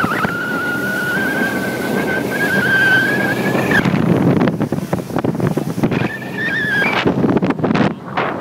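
Four Winns runabout's 195 HP Volvo V6 running at speed, mixed with water rushing past the hull and heavy wind buffeting the microphone. A high held tone that climbs slightly rides over it for the first few seconds and returns briefly later, and sharp wind buffets come near the end.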